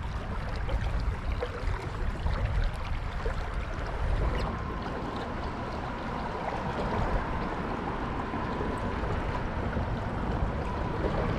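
Shallow creek water running and rippling, with a steady low rumble underneath.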